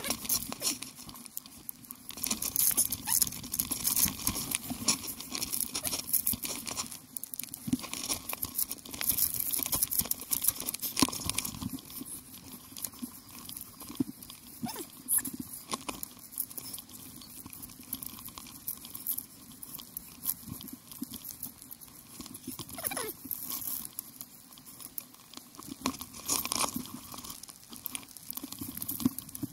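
Footsteps crunching in snow as a mountain bike is lifted and handled, with irregular clicks and knocks from the bike and one brief squeak about two-thirds of the way through.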